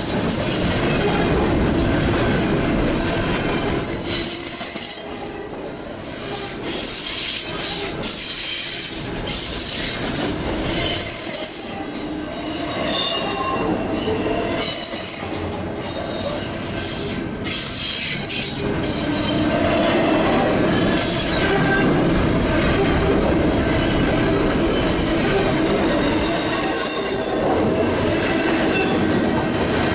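Union Pacific intermodal train's double-stack container cars rolling past: a steady rumble and clatter of steel wheels on the rails, with high-pitched wheel squeals a few times.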